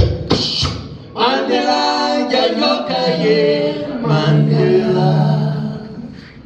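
The band's closing phrase: voices singing long held notes in harmony over the instruments, after a last drum hit at the start, dying away near the end.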